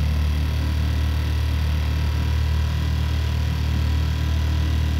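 A dinghy's outboard motor running at a steady speed, a low, even drone that holds unchanged throughout.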